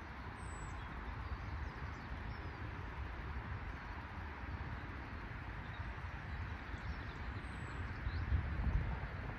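Wind rumbling unevenly on the microphone outdoors, swelling near the end, over a steady hiss. A bird gives two short, high chirps, one just after the start and one near the end.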